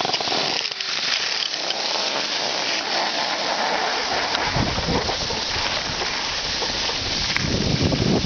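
Skis hissing and scraping over hard-packed groomed snow. About halfway in, wind buffeting the microphone adds a low rumble.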